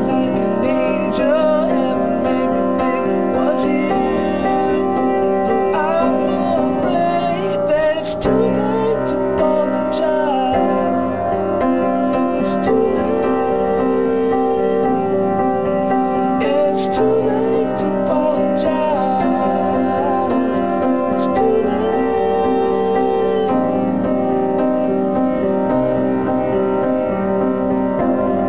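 A man singing a slow pop ballad, accompanied by his own piano playing of steady, sustained chords.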